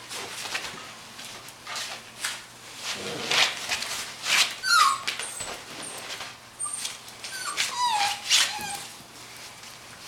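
Golden Retriever–Labrador Retriever mix puppy giving short high whimpers that fall in pitch, a few about five seconds in and more near eight seconds, amid rustling and scratching as it tussles with a plush toy on a fabric couch.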